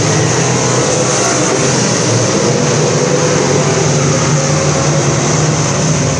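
Several dirt-track sport modified race cars' engines running hard together around the oval, a loud, steady drone with no let-up.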